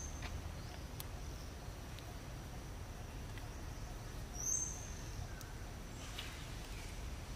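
Forest ambience: a steady high-pitched insect drone over a low background hiss, with one short high chirp about four and a half seconds in and a few faint clicks.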